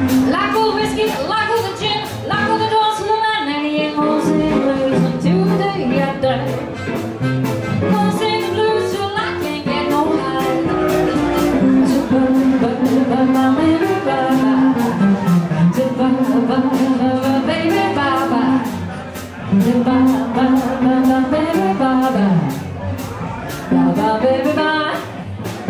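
Live band playing: a steady drum beat under electric and acoustic guitars, with a gliding lead melody on top.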